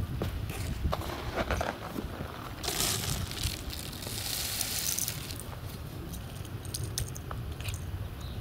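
Carbon dioxide from subliming dry ice hissing out past the cap of a warm-water-filled plastic bottle in two bursts, the bottle under pressure but not sealed tight. Scattered clicks and crackles follow, with a low wind rumble on the microphone.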